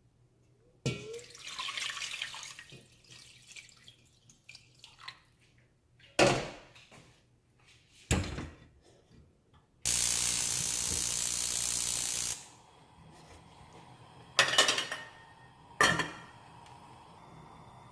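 Water running from a kitchen tap for about two and a half seconds, with several sharp knocks around it.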